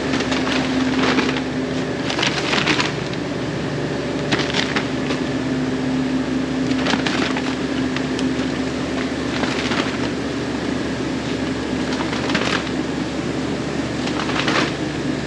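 Potato washer running with a steady hum, with bursts of potatoes clattering and knocking through it every two to three seconds.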